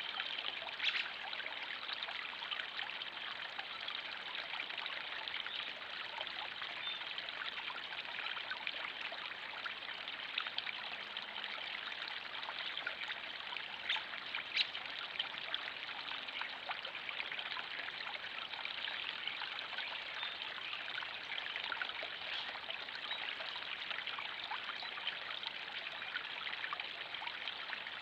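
Steady trickling and splashing of running water from a backyard pond's stream or waterfall, with a few brief sharper clicks.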